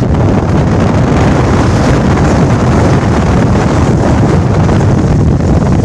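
Steady, loud wind buffeting the microphone over the rumble of a moving vehicle.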